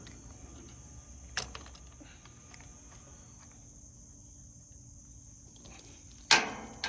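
Small metal hardware being handled while a washer is fitted onto a seat bolt: a sharp click about a second and a half in, faint ticks, and a louder clatter near the end. A steady high-pitched hum sits underneath.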